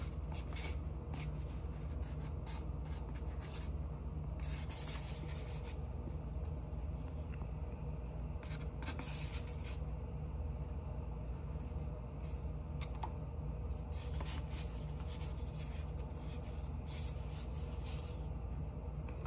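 Fingers folding and rolling a thin egg roll wrapper on a foam plate: soft rubbing and rustling in short, irregular bursts over a steady low hum.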